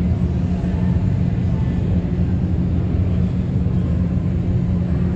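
Rubber-tyred Montreal Metro train running slowly through the station, a steady low rumble and hum heard from on board.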